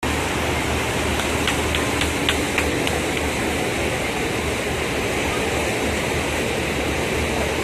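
Steady rush of churned water from a river tour boat's wake over the low drone of the boat's engine, with a few short high ticks about one to three seconds in.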